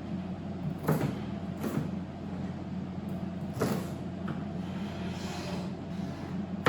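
Kitchen knife chopping celery on a cutting board: four separate chops spaced one to two seconds apart, over a steady low hum.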